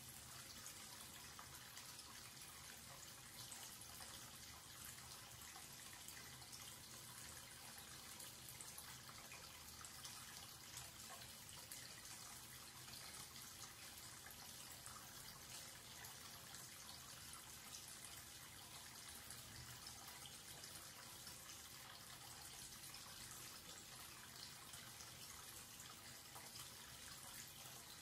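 Thin stream of water from a wall-mounted tap running steadily into a washbasin, a faint, even splashing as it swirls around the open drain.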